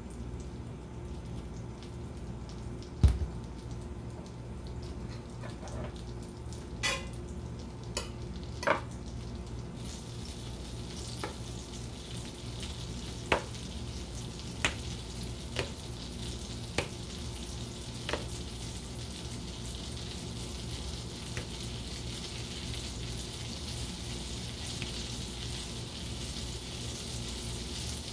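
Hot fat in a cast iron skillet sizzling, starting about ten seconds in and growing louder toward the end. Before and under it, a sharp knock about three seconds in and a scatter of light clicks and taps.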